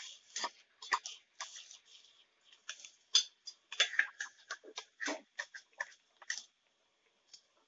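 Blended tomato paste bubbling in hot oil and onion in a frying pan: irregular crackling pops over a faint sizzle, stopping briefly near the end.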